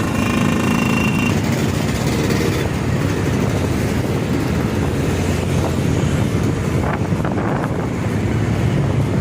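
Motorcycle engines running, with a steady pitched engine note early on that fades into a dense rushing noise, over wind on the microphone.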